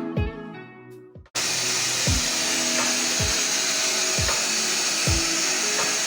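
Deerma DX700 handheld vacuum cleaner's 600 W brushless motor switched on about a second in and running at a steady high-pitched whoosh.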